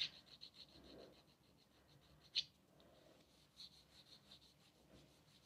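Faint rubbing and scratching of a hand pressing a glued flexible PVC corner bead onto a wall corner, with one sharp click about two and a half seconds in.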